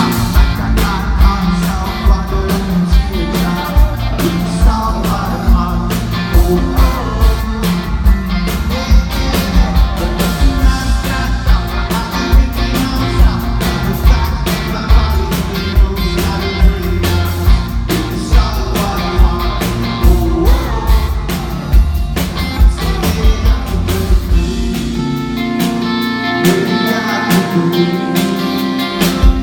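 Rock band playing live, with drums keeping a steady beat under guitars and singing.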